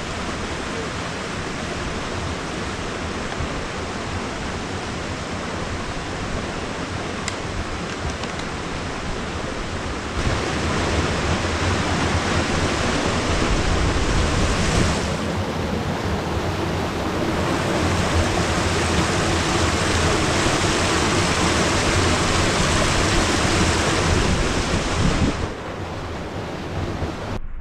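Mountain creek rushing and cascading over rock ledges: a steady wash of white water, getting louder about a third of the way in and dropping back shortly before the end.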